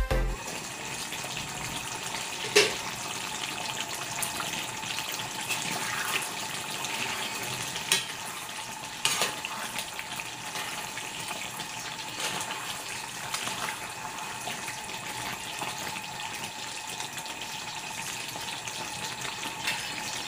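Saba banana pieces simmering in coconut milk in a pan: a steady hiss, broken by a few sharp clicks of a spoon against the pan as it is stirred, the loudest about two and a half seconds in.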